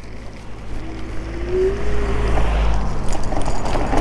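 Wind rushing over the microphone, with road rumble, while riding an iScooter iX4 electric off-road scooter. A brief rising whine comes about a second in. The rush grows louder toward the end.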